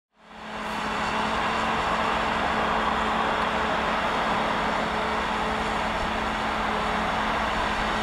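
John Deere 8320RT tracked tractor's 9-litre PowerTech six-cylinder diesel running steadily under load as it pulls a semi-mounted reversible plough through the soil. It is a constant drone with a steady hum, fading in over the first second.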